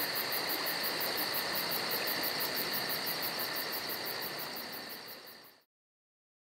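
Night-time insect chorus, crickets chirping in a fast, even pulse over a steady hiss, fading out about five seconds in.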